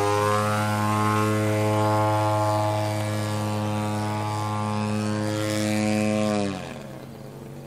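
Gas engine and propeller of a 42% Solution XX giant-scale RC aerobatic plane running steadily in flight. About six and a half seconds in, the pitch dips slightly and the sound drops to a much quieter low drone.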